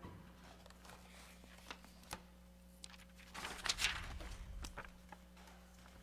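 Quiet room tone as a piano chord breaks off, then scattered small clicks and a brief rustle of paper and book handling about three and a half seconds in.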